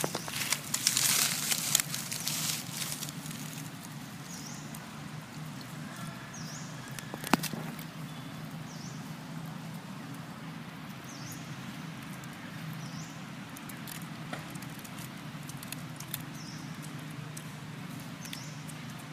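Dry leaves rustling and crackling under macaques moving and foraging on a leaf-strewn forest floor, busiest in the first few seconds, with one sharp click about seven seconds in. Underneath runs a steady low hum, and a short high chirp repeats about every two seconds.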